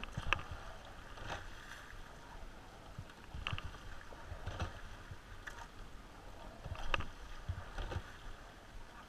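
Sweep-oar rowing shell under way at light pressure on choppy water: water sloshing along the hull, with a sharp clack of the oars in their gates about every three and a half seconds, once per stroke.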